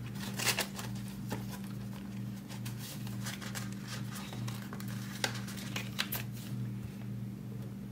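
Quiet handling of paper money and envelopes at a desk: light rustles and a few soft taps and clicks, over a steady low hum.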